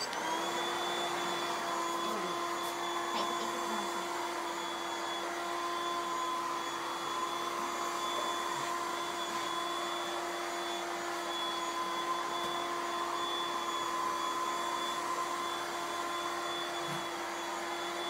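SilverCrest robot vacuum cleaner started by remote: its motor spins up at the start and then runs with a steady whine over a hiss as it cleans.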